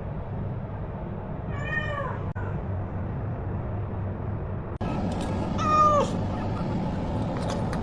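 A cat meowing twice, two drawn-out calls about four seconds apart, over a steady low hum.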